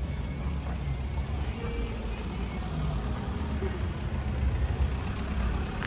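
Car driving slowly past close by, its engine a steady low hum, with faint voices in the background.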